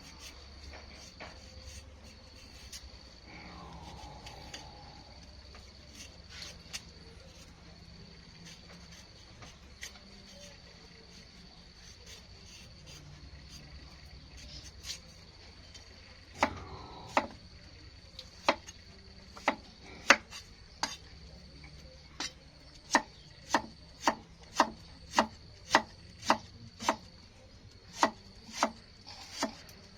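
Knife chopping food on a wooden cutting board: a few scattered strokes at first, then a steady run of chops at about one and a half a second through the second half. A faint steady high tone runs underneath.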